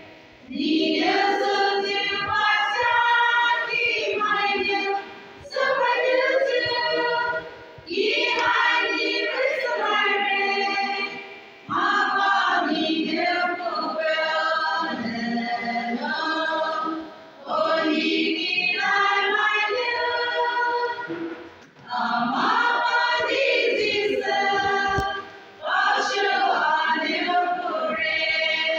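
A women's choir singing in phrases of a few seconds each, with short breath pauses between them.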